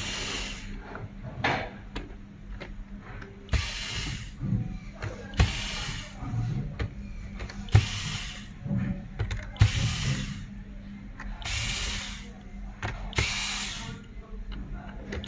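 Cordless electric screwdriver turning the screws in the base of a robot vacuum. It runs in about eight short bursts of a half to one second each, with small clicks of screws and plastic being handled between them.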